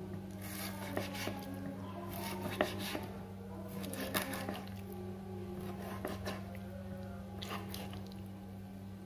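Kitchen knife slicing raw chicken breast on a wooden cutting board, with scattered sharp taps of the blade on the board, over a steady low hum.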